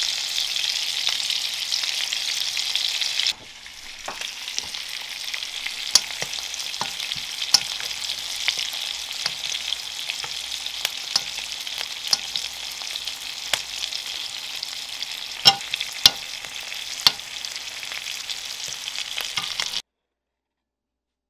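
Rib eye steak sizzling in foaming butter in a frying pan, with sharp clinks of a metal spoon against the pan as the butter is basted over the meat. The sizzle drops quieter about three seconds in and cuts off suddenly near the end.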